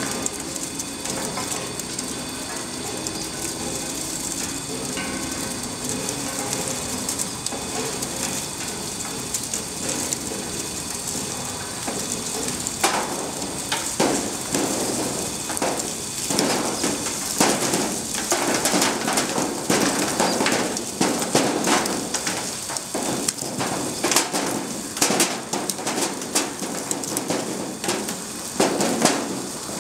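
Tulip bulb grading machine running with a steady hum. From about halfway, bulbs drop onto its moving cords and knock and clatter irregularly as they roll and turn along the bed.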